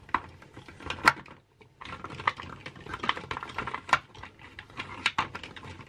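Small plastic makeup containers being handled and sorted, giving a run of light clicks and taps, the sharpest about a second in, with a short pause just after.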